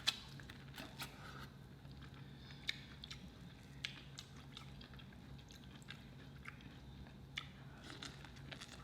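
Seafood being eaten close to the microphone: soft chewing with a few sharp clicks and cracks scattered through it.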